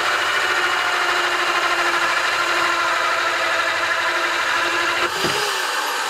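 Corded electric drill driving a large hole saw through a wooden panel. The motor runs under load with a steady whine as the teeth grind into the wood, and the pitch wavers briefly about five seconds in.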